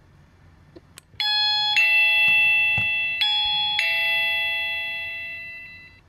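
Electronic doorbell chime: a short click as the bell push is pressed, then a two-note ding-dong, played twice and fading away.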